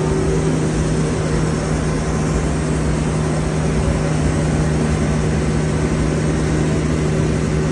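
Manitou telehandler's engine running at a steady speed with a constant low hum while the hydraulic boom lowers its work platform.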